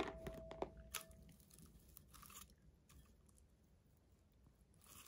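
Faint handling noises from a vase and faux flowers: a sharp knock right at the start and another just after, then a few soft crinkles and scrapes with quiet gaps between.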